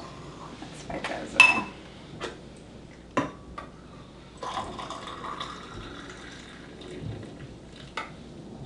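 Frothed milk poured from a stainless-steel saucepan into a glass mug, a steady pour midway through, with a few sharp clinks of metal on glass; the loudest clink, about a second and a half in, rings briefly.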